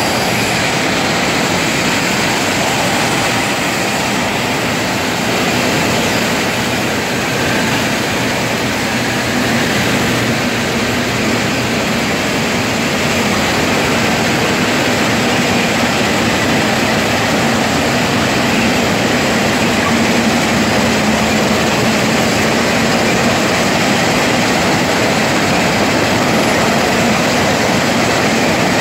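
Railway track-maintenance machine working along the line: a loud, steady mechanical din of its engines and conveyors, with a low hum underneath.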